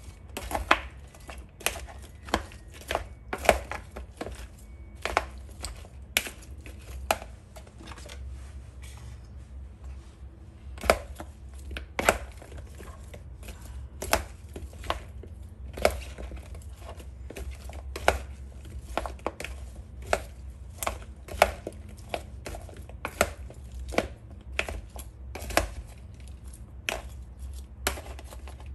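A spoon tossing sauce-coated cauliflower florets in a plastic mixing bowl: irregular knocks and clicks of spoon and florets against the bowl, one or two loud ones a second with smaller ones between, over a low steady hum.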